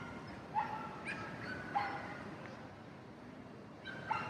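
Siberian Huskies giving short, high barks and yips, about five in all: three in the first two seconds and two more close together near the end.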